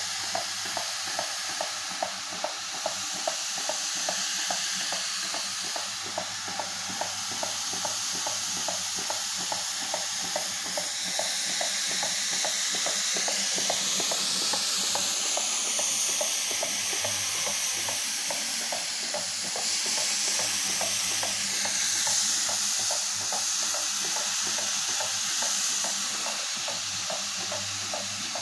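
Single-disc rotary floor scrubber running on wet paving blocks: a steady motor hum under the wet swishing of the brush, with a regular ticking throughout.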